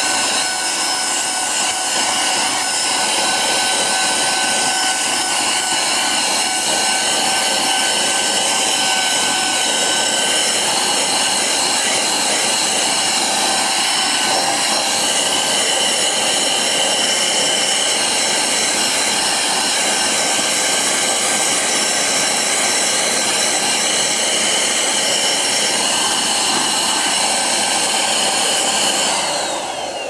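AGARO 800W handheld mains vacuum cleaner running at full power with a steady whine while its nozzle sucks debris off a carpeted car floor mat. Near the end it is switched off and the pitch falls as the motor winds down.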